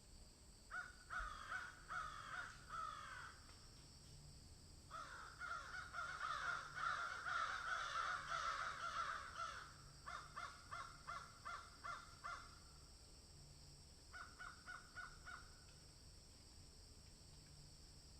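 Birds calling in repeated short, harsh calls, grouped in bouts. Several birds overlap in a dense stretch in the middle, then single rapid series follow.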